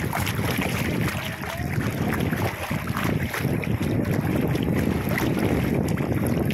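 Wind buffeting the microphone: a steady, rough, low rushing noise.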